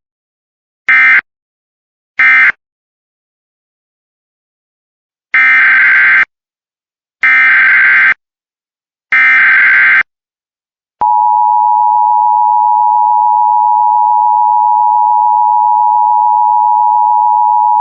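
Emergency Alert System tones: two short end-of-message data bursts close the previous alert, then three evenly spaced SAME header data bursts of about a second each open the next alert. About eleven seconds in, the steady EAS attention tone begins.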